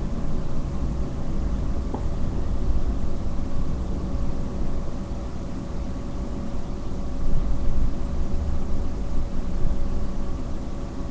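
Steady low background rumble and hiss with a faint, even hum.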